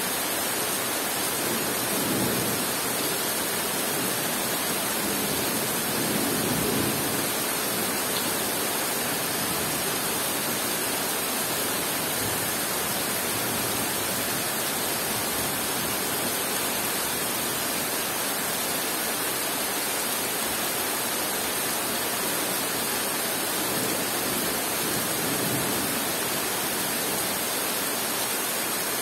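Heavy rain falling on forest foliage: a dense, steady hiss that swells slightly a few times.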